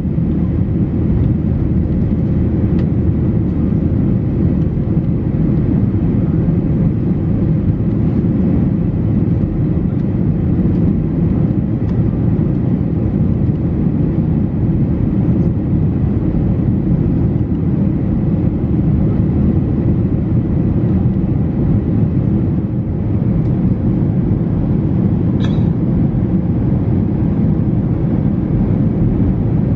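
Steady cabin noise of a Boeing 737-800 in flight: an even, low drone of airflow and engines. A brief click sounds once near the end.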